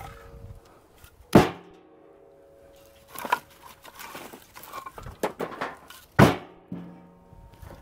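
Split firewood pieces tossed one at a time into a utility vehicle's cargo box, each landing with a sharp knock and a short ringing; three loud knocks a couple of seconds apart, with smaller ones between.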